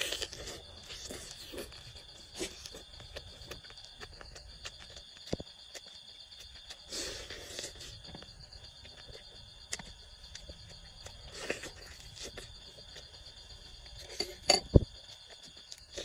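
Close-up eating sounds: chewing, lip smacks and crisp crunches of a pizza slice topped with a cooked lizard, with a sharp crunch of the lizard near the end. A steady high-pitched insect chorus trills in the background.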